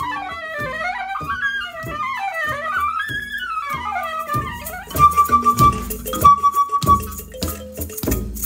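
Soprano saxophone playing a winding melody of rising and falling runs over a low, steady pulse. About halfway in, louder percussion joins with sharp strikes, and the horn holds two long high notes.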